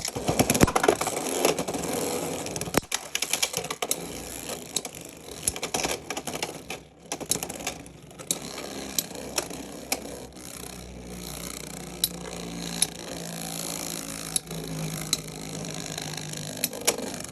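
Two Beyblade X spinning tops, Wizard Rod against Dran Buster on a 3D-printed Momentum bit, battling in a plastic stadium. A quick flurry of clacking hits comes at the start, then a steady whir of the tops spinning and scraping on the stadium floor, broken by scattered clicks of contact.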